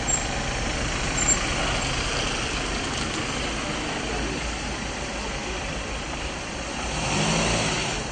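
Ford Transit ambulance engine running as the van drives slowly past, growing louder near the end as it comes closest.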